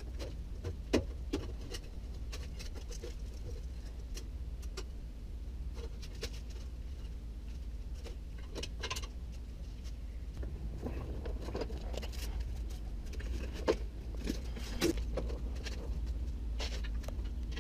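Scattered small metallic clinks and knocks of bolts, brackets and hand tools as a chrome bumper is fitted to a pickup's frame, over a steady low rumble. A few sharper knocks stand out, one about a second in and two more near the end.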